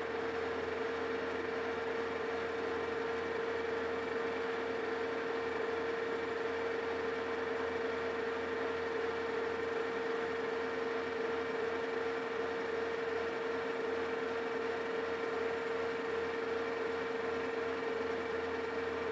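Metal lathe running under power feed while its tool turns a taper pass along a metal shaft: a steady whine from the machine over an even hiss, unchanging in pitch and level.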